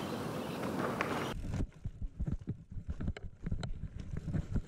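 A steady hiss for about the first second, then a mountain bike rolling over a wooden plank ramp: a run of irregular low knocks and rattles from the tyres on the boards and the bike's frame.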